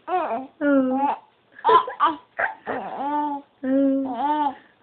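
Four-month-old baby cooing and babbling: a string of about six drawn-out vowel sounds with short breaks between them, the pitch gliding up and down, one harsher squeal-like sound about two seconds in.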